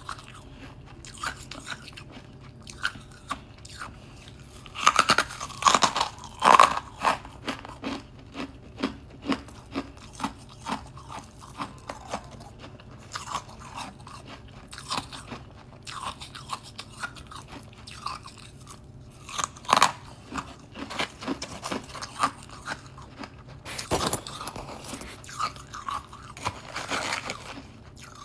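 Close-up crunching and chewing of hard, crisp frost ice: loud bites at intervals, each followed by a run of smaller crackling chews.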